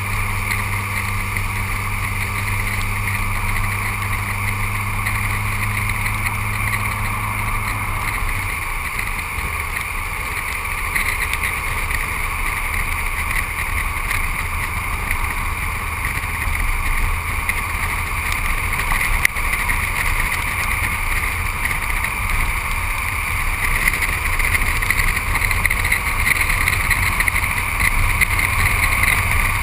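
Steady road and wind noise of a car driving on a wet road, picked up by a camera mounted low on the car's side: tyre hiss and wind rush on the housing. A low engine hum stops about eight seconds in, leaving a rougher low rumble that grows a little louder near the end.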